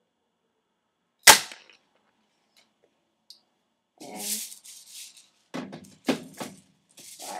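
Airsoft shotgun firing one single-BB shot: a sharp crack about a second in. It is followed a few seconds later by a series of short clattering handling noises.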